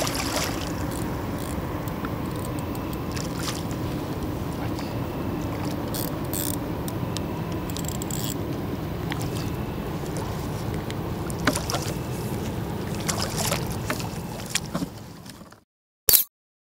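Hooked grass carp splashing and churning the water at the surface beside the landing net as it fights, with scattered sharper splashes. The water noise fades out near the end, and a single sharp click follows.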